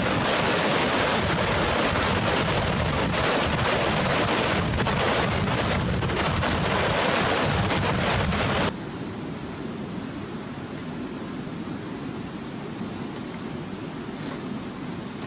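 Shallow river rapids rushing over rocks, a loud steady hiss of water. About nine seconds in it cuts off abruptly to a much quieter steady outdoor background.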